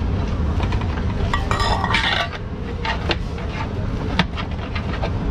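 Dishes and metal utensils clinking and clattering in a series of short knocks, densest about a second and a half in, over a steady low rumble.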